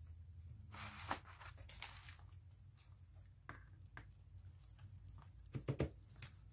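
Faint rustling of a paper journal page and fabric lace trim being handled, then a quick cluster of scissor snips a little before the end as the lace trim is cut.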